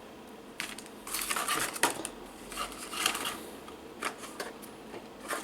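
Small hard plastic action-figure accessories being handled: scattered clicks and light rustling in several short bursts.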